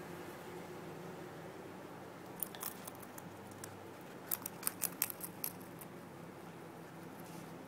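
Guinea pig biting and chewing fresh grass blades: sharp, crisp clicks of the bites, a few about two and a half seconds in and a quick run of them around the middle, over a faint steady hum.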